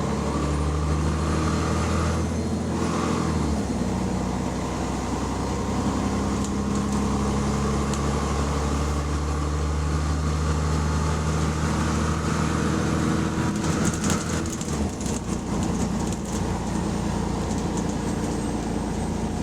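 Diesel bus engine running with an exhaust leak, a steady engine note that shifts as the bus changes speed about three seconds in and again about fifteen seconds in.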